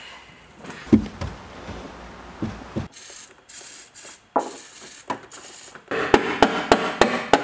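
A low thump about a second in, then short hissing blasts of an aerosol spray can aimed at seized seat-mount bolts. Near the end comes a quick run of metal ratchet clicks, about four or five a second, as a bolt is worked on.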